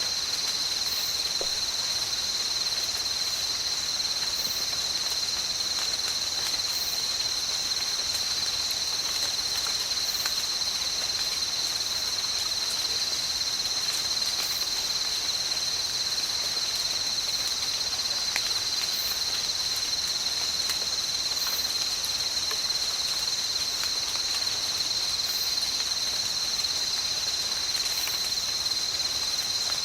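Steady, high-pitched chorus of night insects, unbroken throughout, over a faint even patter of light rain with scattered drop ticks. Faint very high chirps recur every two or three seconds.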